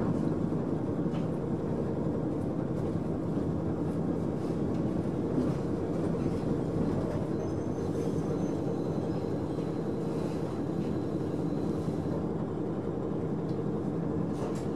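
Cabin sound of a KiHa 40 diesel railcar slowing to a stop: a steady low diesel hum with the rumble of the wheels on the rails, and a faint thin high squeal for a few seconds midway.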